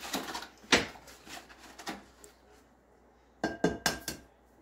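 Knocks and clinks against a glass mixing bowl: one sharp knock about a second in, then a quick cluster of taps with a short glassy ring about three and a half seconds in, as an egg is rapped on the bowl to crack it.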